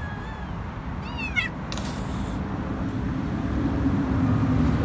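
High-pitched meows from a hungry kitten: short calls at the start and a longer one falling in pitch about a second in. A brief hiss of noise follows, and a low rumble builds toward the end.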